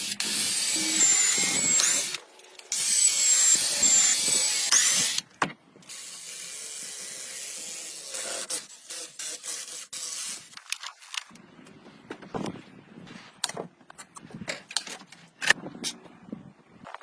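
A power tool runs in two bursts of about two seconds each, a loud hiss with a thin high whine. Quieter steady noise and scattered knocks and clicks follow.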